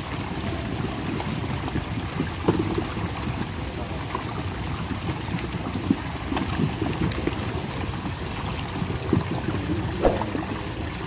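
Water sloshing and splashing in a shallow muddy pond as men wade and haul a net through a shoal of milkfish. Scattered short knocks and slaps come from fish being thrown into the boat.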